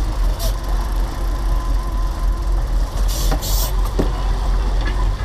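Boat engine running steadily with a low rumble, with a short burst of hiss about three seconds in.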